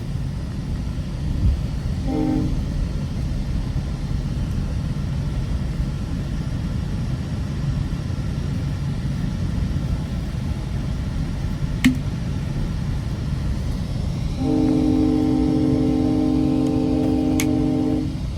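GO Transit commuter train horn heard from inside a moving coach: one short toot about two seconds in, then a long blast of about three and a half seconds near the end, over the steady low rumble of the train running on the rails. A single sharp click about twelve seconds in.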